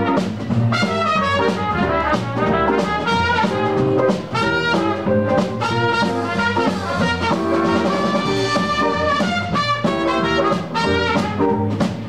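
Live band playing an up-tempo dance number: saxophone and a brass horn carrying the melody over a drum kit's steady beat, with guitar and bass underneath.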